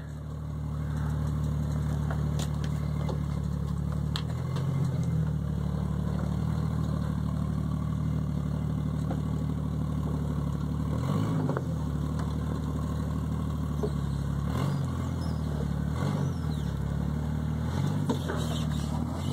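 Jeep Grand Cherokee ZJ engine running steadily at low revs while crawling, the revs dipping and rising slightly a few times, with a few faint knocks.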